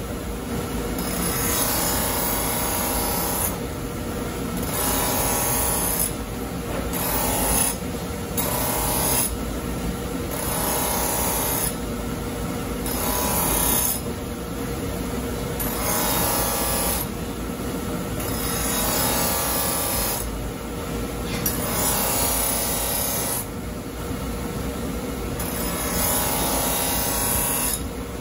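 Motor-driven abrasive buffing wheel running with a steady hum while the steel blade of a deba kitchen knife is pressed against it, giving a rasping grind that swells and fades in repeated passes roughly every two seconds. This is the buffing stage that refines the coarse scratches left by a #100 grinding wheel.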